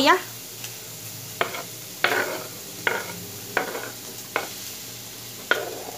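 A metal spoon scraping and tapping chopped onion off a wooden cutting board into a bowl, about six short strokes under a second apart. Faint steady sizzling of pork frying in a pan underneath.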